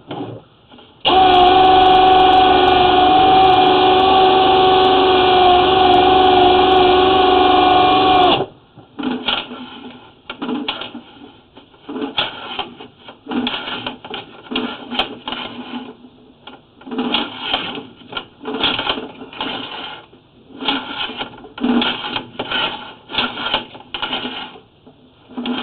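A drain-cleaning machine's motor whining steadily for about seven seconds, then cutting off suddenly. A run of short, irregular mechanical bursts follows, each about half a second long.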